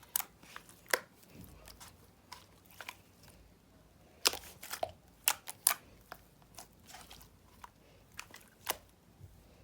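Slime being squeezed and poked: irregular sharp clicks and crunchy pops, loudest just before the start, about a second in, and between four and six seconds in.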